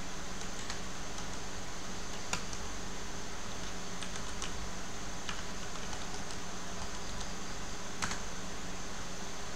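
Computer keyboard keys clicking irregularly as a command is typed, a few separate keystrokes with the sharpest about two seconds in and near the end. Beneath them is a steady hiss and a low hum.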